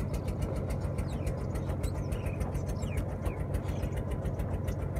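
An engine running steadily at idle with a fast, even beat. A few faint bird chirps are heard high above it.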